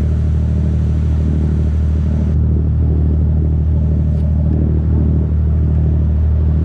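Fishing boat's engine running steadily underway: a deep, even drone, with the rush of water along the hull.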